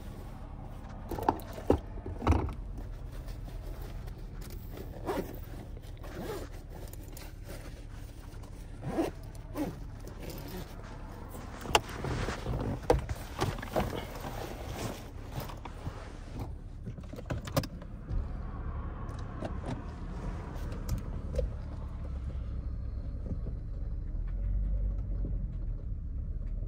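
Backpack being handled and zipped, with rustling, fabric scrapes and sharp clicks, over the low hum of a car engine running. Near the end the engine and road rumble grow louder as the car drives off.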